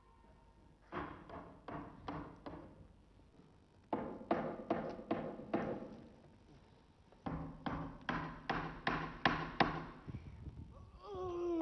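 Knocking on an upturned wooden table: three runs of sharp blows, about three or four a second, with short pauses between. Near the end a person's voice gives one long falling groan.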